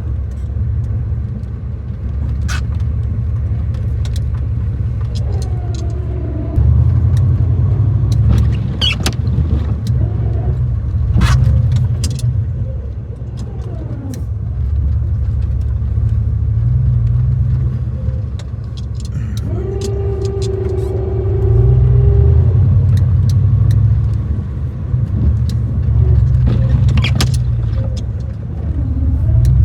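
Gasoline three-quarter-ton pickup truck running while working a snowplow: a heavy low rumble that swells and eases. Scattered knocks and a brief whine come about twenty seconds in.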